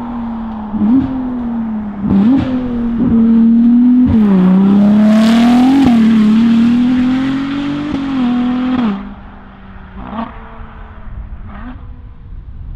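Ferrari 296 GTB's twin-turbo V6 through a NOVITEC valved exhaust with the catalytic converters removed, revving: the note rises and falls with several sharp throttle changes, is loudest from about four to six seconds in, and drops back to a quieter run after about nine seconds.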